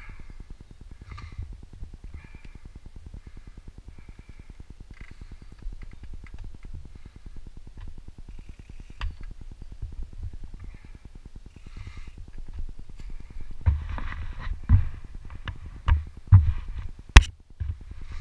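Mountain bike rolling down a dirt singletrack, with the rear hub ratcheting in a fast, even buzz and the tyres rumbling on the dirt. About four seconds from the end, several heavy knocks and rattles come as the bike goes over rough ground, ending in a sharp crack.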